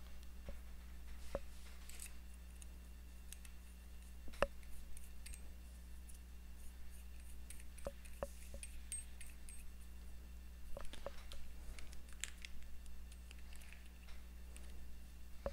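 Scattered small clicks and taps of a rebuildable dripping atomizer's metal parts being handled, the sharpest about four seconds in, with brief soft rustles, over a steady low hum.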